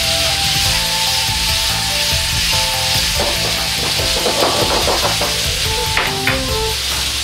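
Chicken frying in oil in a wok over a gas flame, sizzling steadily. A metal ladle scrapes and clicks against the wok between about three and five seconds in, and clanks once near six seconds as it is set down.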